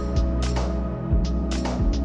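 Background music with a steady beat of about two hits a second over held chords.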